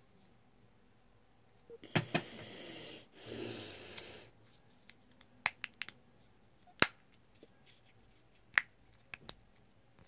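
Sharp plastic clicks from an Opel flip-key remote shell being handled and pressed: about nine separate clicks, the loudest near two, seven and eight and a half seconds in. Two short stretches of hissing noise come between about two and four seconds in.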